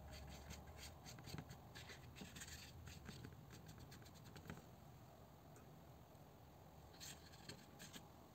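Faint, scratchy strokes of a paintbrush on watercolour paper: a run of quick strokes over the first few seconds and a short group near the end, over a low steady hum.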